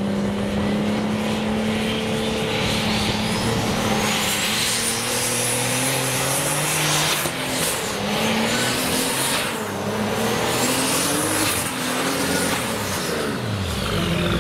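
Modified pulling tractor engine at full throttle hauling the weight sled, with a high whistle that climbs steeply over the first few seconds and then wavers up and down. Near the end the engine note drops as the pull bogs down short of a full pull.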